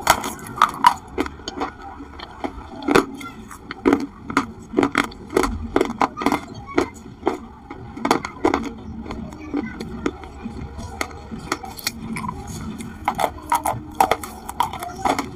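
Dry white clay sticks being bitten and chewed: a quick, uneven run of sharp, crisp crunches, several a second.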